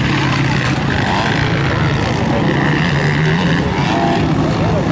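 Motocross bike engines running loud on the track, the pitch rising and falling as riders rev and shift, over a steady low drone.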